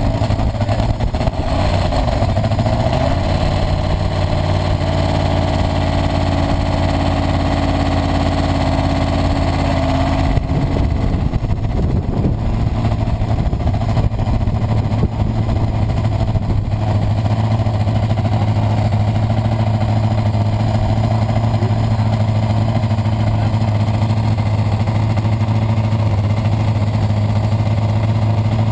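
Formula SAE race car engine running at a held, steady engine speed for a sound-level test. Its note steps up slightly about two seconds in and changes about ten seconds in, then stays steady.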